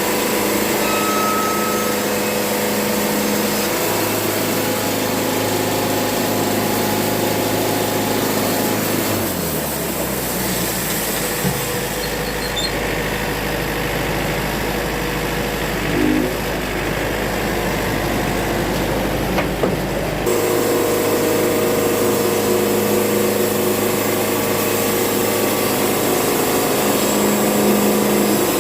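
Wood-Mizer portable band sawmill running steadily, engine and blade working on a black walnut log. About ten seconds in the pitch drops and the sound thins out for roughly eight seconds, then the full running sound comes back abruptly.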